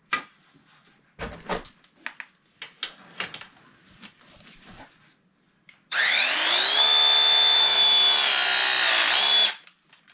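Scattered clicks and knocks of handling, then about six seconds in a battery-powered tool's motor spins up with a rising whine, runs steadily for about three and a half seconds and winds down.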